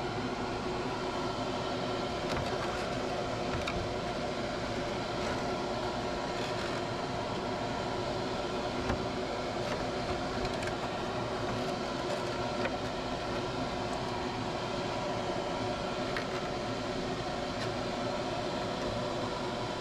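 Spray booth extraction fan running steadily, a constant hum with a few faint clicks from the plastic body being handled.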